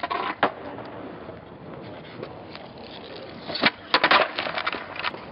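Skateboard wheels rolling on concrete, with a sharp clack about half a second in. Near the end the tail snaps down to pop the board into a flip trick and the board clatters onto the concrete several times.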